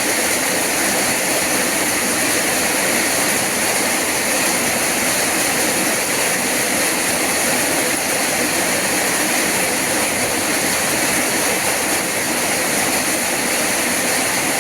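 Rain falling steadily: an even hiss with no single drops standing out.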